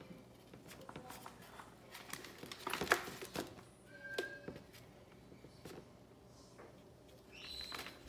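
Baby African grey parrot pecking at a metal bowl of seed mix, with scattered clicks and rattles that are busiest about three seconds in. It gives a short squeak about four seconds in and another call near the end.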